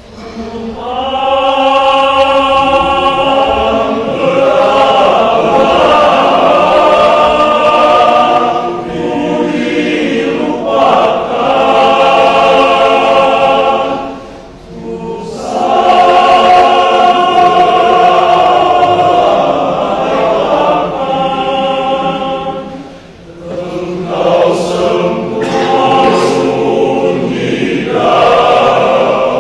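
Men's church choir singing in sustained chords, coming in about a second in and moving in long phrases with two brief breaks.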